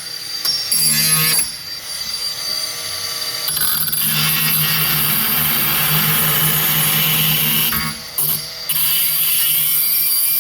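Small grinder running and grinding off the protruding ends of steel hot-repair staples set in a plastic headlight tab, with brief let-ups about a second and a half in and again near eight seconds.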